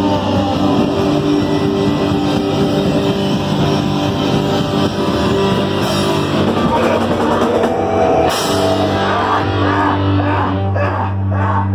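Rock band playing live at full volume: electric guitar and bass over a drum kit. About three-quarters of the way in the band lands on one long held chord.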